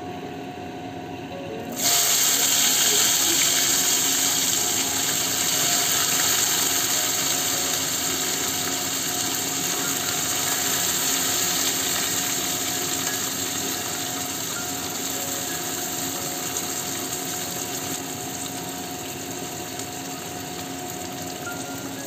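Sliced onions hit hot mustard oil in a kadai and start frying. A loud sizzle starts suddenly about two seconds in and slowly dies down as the onions fry.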